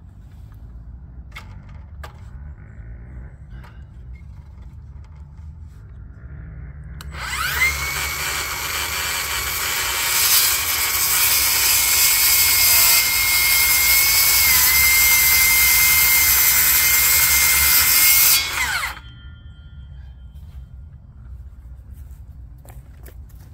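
Cordless circular saw spinning up about seven seconds in and cutting through the top of a pressure-treated wooden post for about eleven seconds with a steady whine, then winding down. Light knocks and handling sounds come before the cut and after it.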